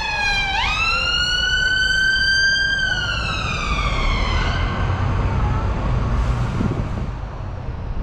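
Ambulance siren wailing: a falling tone, a quick rise about half a second in, a held high note, then a slow fall that fades out about four and a half seconds in. The low rumble of the bus and street traffic runs underneath.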